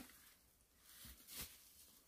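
Near silence, with a faint short thump about one and a half seconds in.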